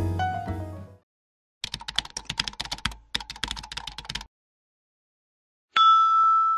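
Music fading out, then rapid keyboard-typing clicks in two quick runs with a brief break between them, as a typing sound effect. Near the end a single bright chime starts and rings on, slowly fading.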